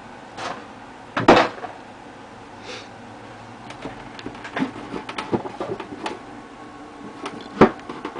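Plastic model kit parts and packaging being handled: two sharp knocks, about a second in and near the end, with scattered light clicks and taps in between.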